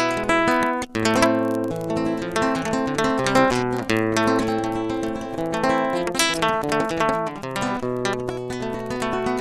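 Classical guitar playing an improvised piece as background music: a steady stream of plucked notes and chords, with a brief gap about a second in.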